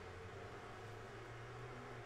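Quiet room tone: a steady low hum under a faint even hiss.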